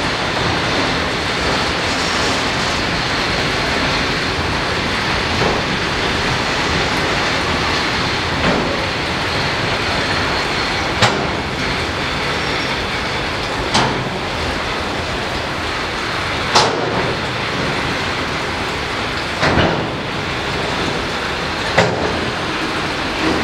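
Metra Electric commuter train running past: a steady rumble and hiss, with a sharp click every two to three seconds from about halfway through.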